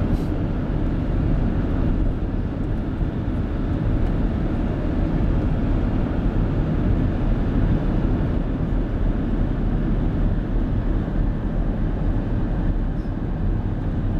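Steady low rumble of road and wind noise from a moving car, with no horn or other distinct event.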